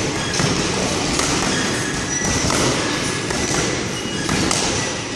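Boxing-gloved punches landing on focus mitts, a few irregular thuds, over a loud steady rumbling background noise.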